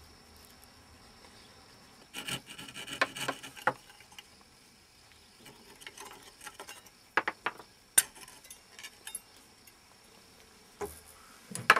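Fine-bladed hand frame saw cutting limewood in short rasping strokes, in bursts about two seconds in and again near the end, with a few sharp clicks in between as it cuts waste from inside a carved chain link.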